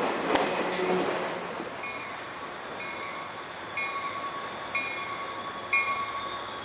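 The noise of a just-passed freight train fading out, then a railroad crossing warning bell dinging about once a second, the signal of an approaching train.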